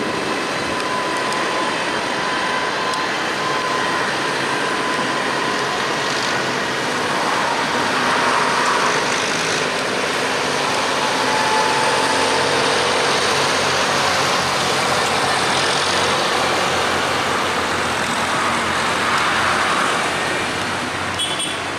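Diesel engines and tyre noise of a line of tractors, New Hollands and John Deeres among them, driving past one after another on a road. The sound is continuous and swells a little as the nearer tractors go by.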